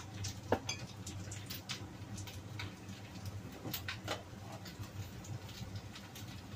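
Fried noodles crackling in a hot wok, with scattered small ticks and pops over a steady low hum. A couple of sharper knocks stand out about half a second in and around four seconds in, as a sauce bottle and a plastic seasoning container are handled.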